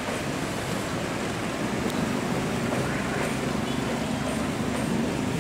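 A passenger train moving along the track, a steady rumble with a low hum, mixed with traffic on a wet road. It gets a little louder about a second and a half in.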